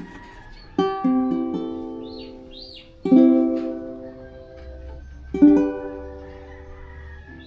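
Cordoba UP100 soprano ukulele playing three chords about two and a half seconds apart, each left to ring out and fade. The first chord is rolled, its strings sounding one after another.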